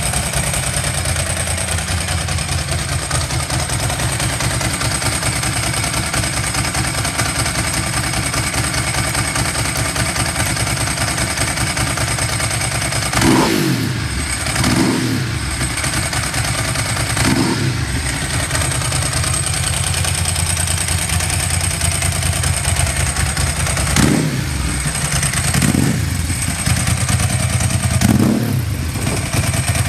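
Ducati 999S's Testastretta L-twin engine idling steadily, blipped on the throttle about six times in the second half, each rev rising and falling back quickly to idle. The idle is stable, with no abnormal noise.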